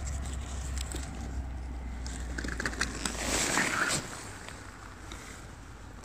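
Dry pine needles and leaf litter rustling and crackling under a gloved hand picking a mushroom, with a busier spell of rustling just past halfway. A low rumble underneath stops about halfway through.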